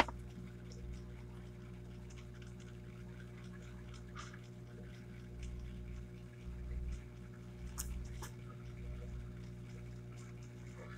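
Steady low electrical-type hum with a faint low rumble, broken by a few light clicks and soft rustles as a hand moves over sheets of paper; two sharp little clicks come close together about eight seconds in.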